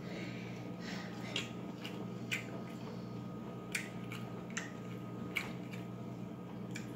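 Quiet sounds of eating by hand: a few faint, scattered clicks and smacks from chewing and fingers on the plate, over a steady low hum.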